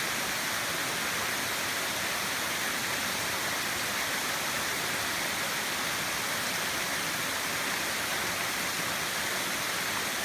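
Waterfall: water falling and rushing over rocks in a steady, even hiss.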